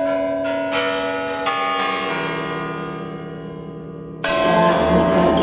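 Bells struck a few times and left ringing, the tones slowly fading. A louder stretch of music comes in near the end.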